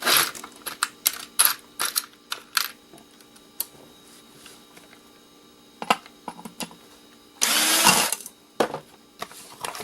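Clicks, knocks and rattles of small metal and plastic parts being handled while a tea kettle is taken apart for scrap, with one louder burst of noise lasting under a second about seven and a half seconds in.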